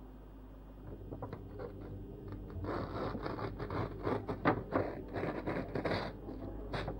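Paper pages being ripped out of a book: repeated irregular tearing, faint about a second in and louder from about three seconds.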